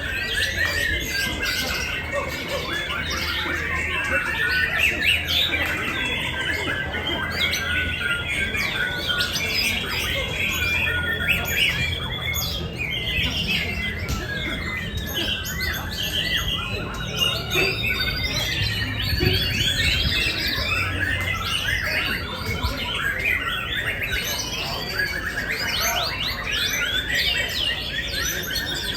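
Many songbirds singing at once in a dense, continuous mix of overlapping chirps, trills and squawky calls, over a low steady hum.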